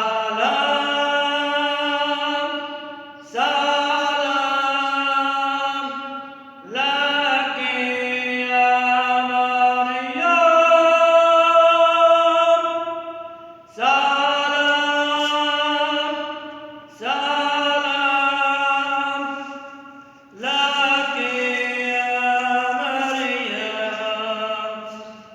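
A man chanting a liturgical hymn unaccompanied, in long sustained phrases of about three seconds each, with short breaths between them.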